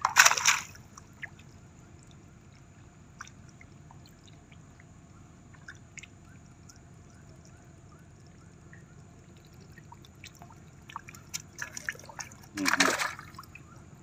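Shallow muddy water splashing and trickling as hands and feet grope through it, with small drips and faint clicks. There is a louder splash right at the start and another near the end.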